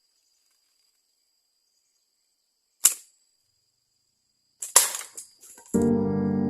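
A single sharp snap, then about two seconds later a quick cluster of snaps and knocks, typical of a slingshot's rubber band being released and the shot striking. Music starts near the end.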